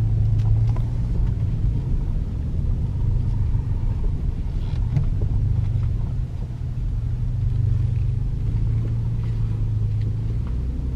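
A car driving, heard from inside the cabin: a steady low engine and road rumble.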